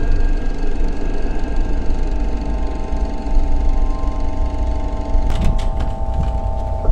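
A steady low rumble with faint humming tones over it. From about five seconds in, a series of sharp clicks and knocks joins it.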